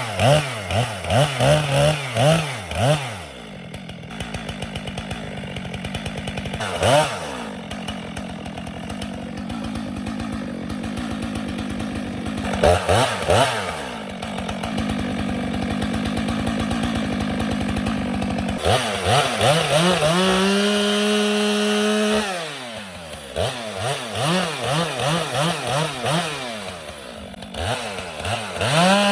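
Chainsaw felling a tree, its engine revving up and down over and over between stretches of steady cutting. About two-thirds of the way through it holds a high, steady pitch for a few seconds, then drops back.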